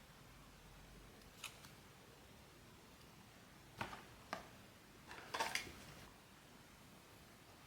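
Light handling sounds of blind-box packaging and a small toy figure: a few isolated clicks, then a quick cluster of clicks and taps about five seconds in.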